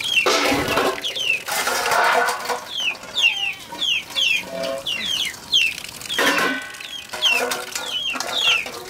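Chickens peeping over and over, short high falling chirps several a second. Steel plates clatter and water splashes as dishes are washed under a tap, loudest near the start, from about one and a half to two and a half seconds in, and again around six seconds in.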